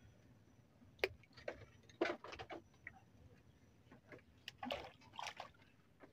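A string of irregular sharp clicks and knocks, with a few longer splashy or rustling bursts among them, including one near the end.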